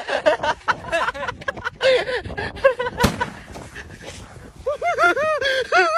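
Men laughing hard in short repeated bursts, a loud run of laughter near the end, with one sharp click about three seconds in.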